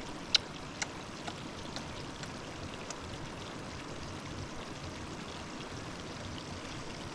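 Steady rushing noise with a handful of sharp clicks in the first three seconds, the first, about a third of a second in, much the loudest.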